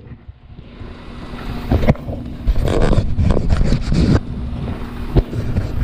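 Pressure washer running with a steady engine hum, its spray rushing against mud-caked potato-handling equipment in bursts, loudest in the middle.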